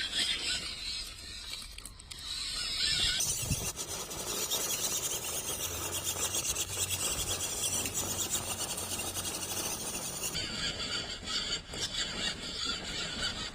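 Small electric motor and gear drive of an MN-99 1:12 scale 4WD RC car running with a raspy whir, louder from about three seconds in and easing back about ten seconds in.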